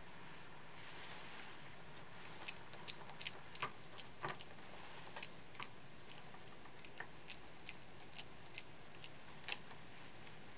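Small precision screwdriver turning screws into the servo joints of a Petoi Nybble robot cat's legs: a scatter of light, irregular clicks and ticks, starting a couple of seconds in.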